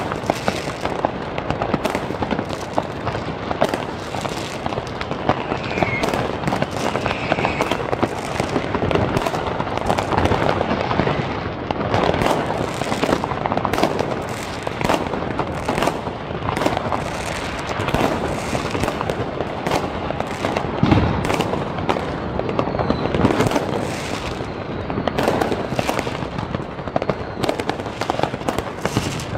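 Many aerial fireworks going off at once: a dense, unbroken barrage of bangs and crackling, with one deeper, louder boom about two-thirds of the way in.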